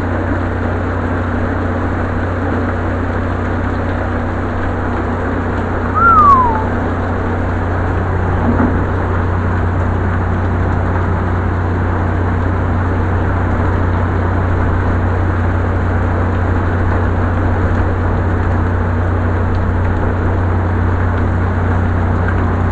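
Steady rain with a constant low hum underneath. About six seconds in, a single short tone falls in pitch.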